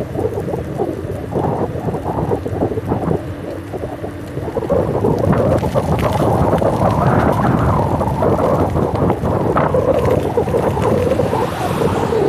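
Wind buffeting the microphone of a camera on a moving bicycle: a dense, rumbling rush that gets louder about four and a half seconds in.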